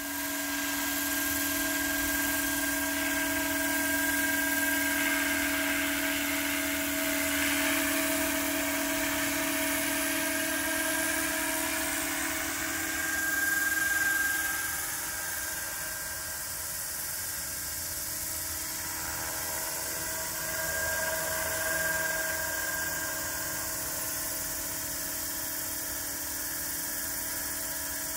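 Radio-controlled scale Bell 429 helicopter in slow flight: a steady high-pitched mechanical whine from its drive over the rotor's whirr, growing a little louder about halfway through.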